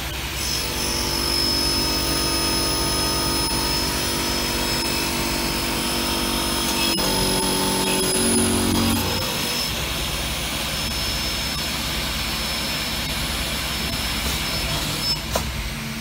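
Multi-spindle drilling and tapping machine running on aluminium profile: a steady motor hum with a high whine from the spindles. The pitch of the hum shifts about halfway through, and there is a sharp click near the middle and a couple of short knocks near the end.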